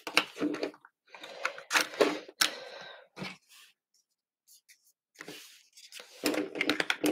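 Plastic clicks and scraping as parts are pushed back into the slots of a Framework laptop, stiff to fit. The clicking pauses about halfway through, then starts again near the end.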